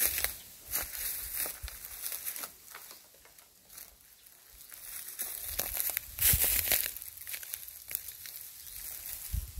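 Dry bamboo leaf litter crackling and crunching underfoot in irregular bursts, with a quieter stretch partway through.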